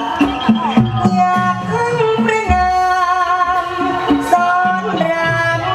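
Thai likay song: a singer holds long, wavering melodic notes over traditional instrumental accompaniment, with a low drum stroke about halfway through.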